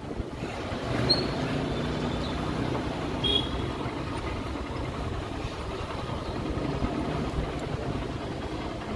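Motor scooter riding in city traffic: a steady engine hum with road and wind noise. Two short high chirps come about a second in and again near the middle.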